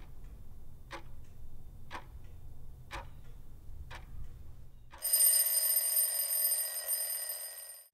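Alarm clock ticking about once a second, then its bell ringing loudly for nearly three seconds before cutting off.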